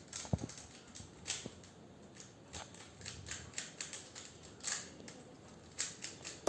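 3x3 Rubik's cube being turned by hand during a speed solve: irregular plastic clicks and clacks as the layers snap round.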